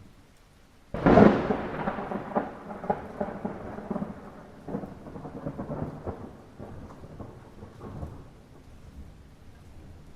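A sudden thunderclap about a second in, rolling and crackling on as it fades over several seconds, over light rain.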